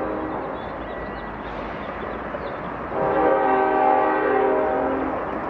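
Train horn sounding long chord blasts: one ends just after the start and another sounds from about three seconds in until near the end, over the steady noise of a passing train.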